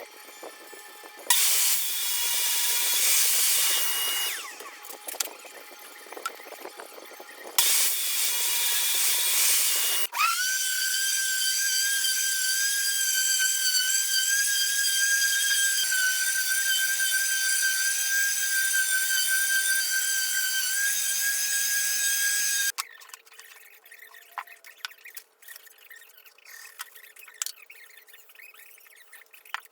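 A power tool used on wood. It runs in two short noisy bursts, then holds a steady high whine for about twelve seconds, and cuts off near the end, leaving only faint clicks and taps.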